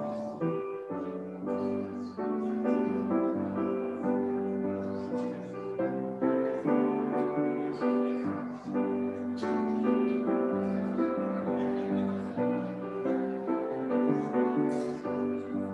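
Solo grand piano playing, with chords and melody notes struck continuously.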